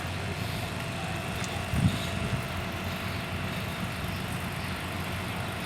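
Demolition machinery engine running steadily, with a single thump about two seconds in.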